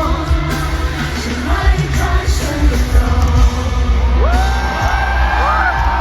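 Live pop concert music with heavy bass and a woman singing, recorded from the crowd in an arena. About four seconds in, high rising and falling cries join over the music.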